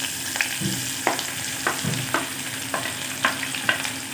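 Chopped onions sizzling in hot oil in a steel pressure cooker, a steady hiss, with a wooden spoon clicking and scraping against the pot about twice a second as they are stirred.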